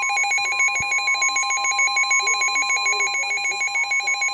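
A NOAA Weather Radio warning alarm tone: a steady, pure electronic tone near 1050 Hz. Over it runs a rapidly pulsing electronic alert beep. The tone signals that a warning broadcast, here a tornado warning, is about to follow.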